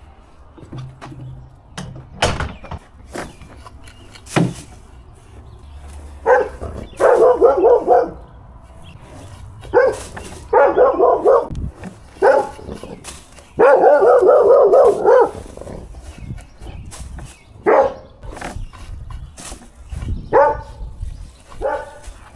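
A dog barking in repeated runs of quick barks, the longest about a second and a half, with sharp knocks and clicks in between.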